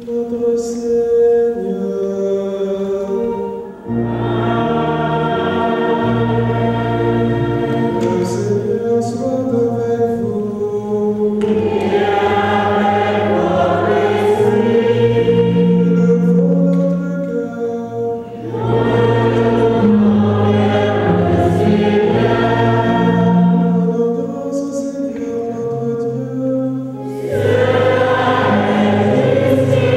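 Church choir singing a hymn in long, held phrases with short breaks between them.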